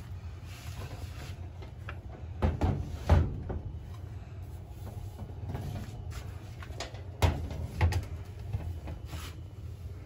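Lasko Ultra Force box fan (model 3700) running with a steady low hum. Four knocks in two pairs, about three and eight seconds in, come from bumps against the fan as it is handled.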